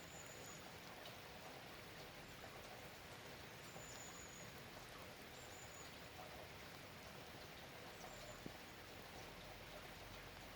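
Steady, soft rain falling, with scattered faint drip ticks. A few short, faint high-pitched chirps come through the rain now and then.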